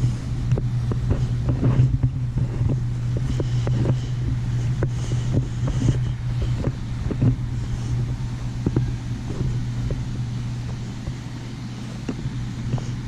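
An engine runs steadily with a low, even drone, and scattered knocks and rattles sound over it throughout.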